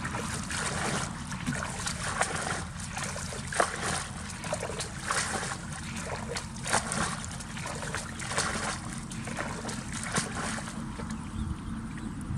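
Water splashing and trickling, with irregular sharp splashes every second or so, over a steady low rumble.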